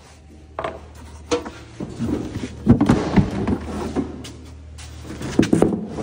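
Tractor cab's grey plastic trim panel being handled and lifted away, with a run of knocks, clatter and scraping. The loudest knocks come about three seconds in and again near the end, over a steady low hum.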